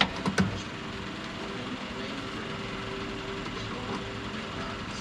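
Plastic vapor barrier being pulled off a car door's inner panel: a few sharp crackles and knocks in the first half second, then a steady faint hum in the background.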